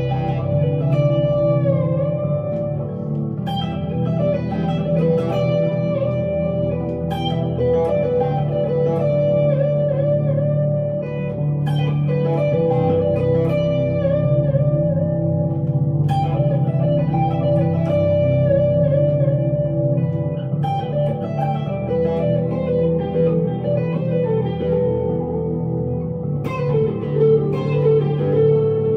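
1965 Fender Stratocaster electric guitar played through an amplifier: a slow, melodic lead line of single notes with string bends, ringing out with delay and reverb.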